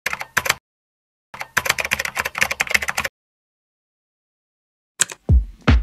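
Rapid clicking like typing on a computer keyboard, in a short run and then a longer run of about two seconds, stopping dead. About five seconds in, a music track with a deep thudding beat begins.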